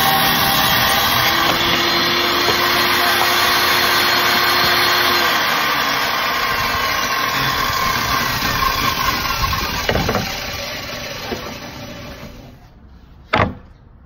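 Circular saw running steadily, then switched off about five seconds in, its whine falling as the blade spins down over several seconds. A sharp knock comes near the end.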